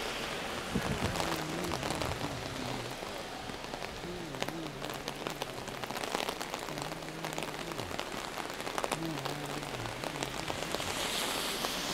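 Heavy rain falling steadily, with many single drops striking close by as sharp ticks.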